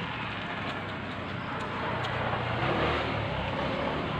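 A motor vehicle's engine running under a steady din of background noise, a little louder in the middle.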